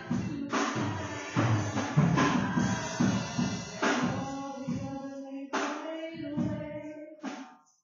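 Live church praise music: a band with drums and tambourine strikes under singing, dropping away near the end.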